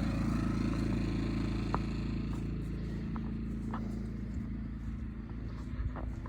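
Small portable generator's engine running steadily, its hum slowly growing quieter, with a few faint clicks.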